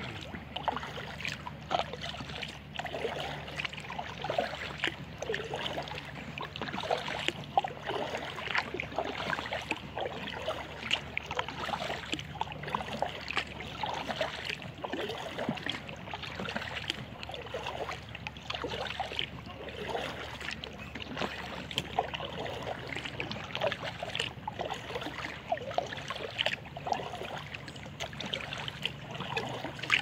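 Kayak paddle strokes in calm river water: irregular small splashes with water trickling and dripping off the paddle blades.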